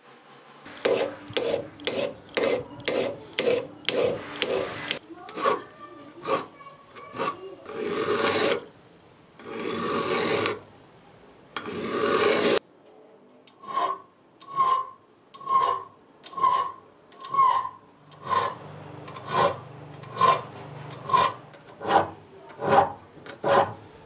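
Hand file rasping across the steel parts of a vintage Domino adjustable spanner: a run of quick short strokes, about two a second, then three long slow strokes, then steady strokes about one a second.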